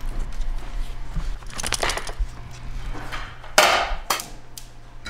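Kitchen handling sounds at a gas range: a few sharp knocks and clatters, the loudest about three and a half seconds in, over a low steady hum.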